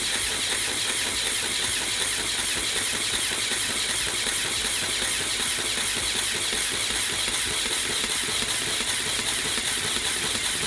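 Lego pneumatic compressor running: two Lego XL motors driving Lego hand pumps, a steady mechanical whir as they build air pressure in the system.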